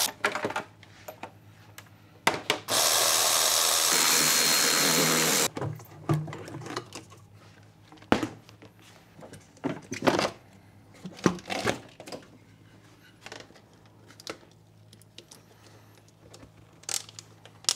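Cordless electric ratchet spinning out engine-cover bolts in two steady runs: a short one at the start and a longer one of about three seconds. It is followed by scattered clicks and knocks of plastic and rubber parts being handled.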